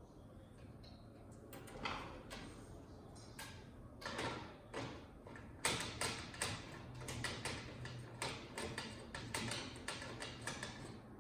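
Sharp clicks, taps and scrapes of a flat-screen TV's mainboard being unplugged and worked free from its metal chassis by hand. They are scattered at first, then come thick and fast from about halfway in.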